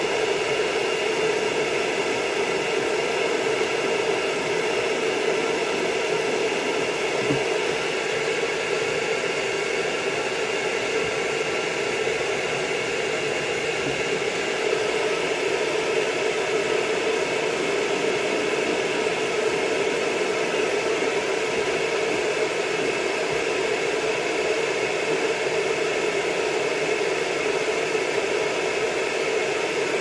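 Pet grooming dryer on a stand arm running steadily, blowing air over a long-haired miniature dachshund's coat: an even rush of air with a low hum and a faint high whine.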